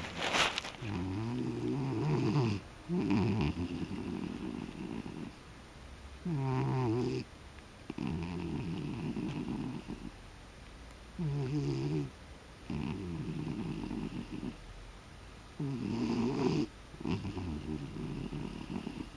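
Steady rhythmic snoring from a sleeper, four breaths about five seconds apart. Each breath has a short pitched snore followed by a longer, rougher rasp.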